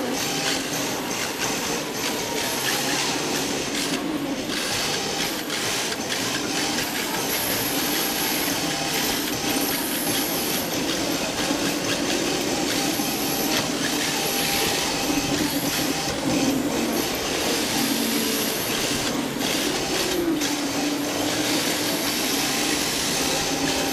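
Onboard sound of an RC drift car: the electric motor and gears whine, rising and falling with the throttle, over a steady hiss of hard drift tyres sliding on a smooth floor.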